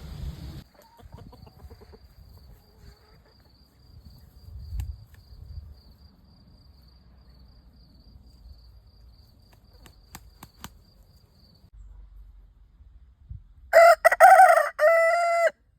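A rooster crowing once near the end, a loud call of about a second and a half in several linked segments, after a long quiet stretch.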